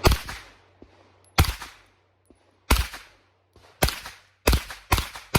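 Palmetto State Armory AR-15-platform 9mm carbine fired semi-automatically, seven shots with a short ringing tail each. The first few come over a second apart, then they speed up to about two a second near the end.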